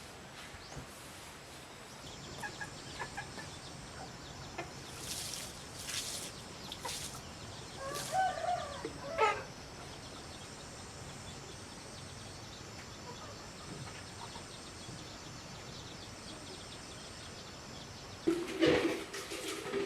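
A chicken clucking and calling about eight to nine seconds in, over faint household clicks and knocks. A louder burst of noise starts near the end.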